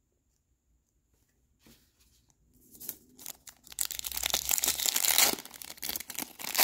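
A Panini Revolution basketball card pack's wrapper being torn open and crinkled by hand. It starts quietly about two seconds in and is loudest around the middle.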